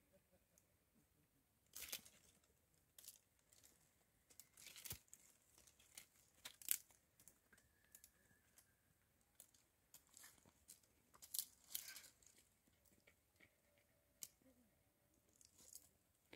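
Quiet, irregular crackling and crumpling noises: about a dozen short, sharp rustles at uneven intervals, the sharpest about two-thirds of the way through the first half.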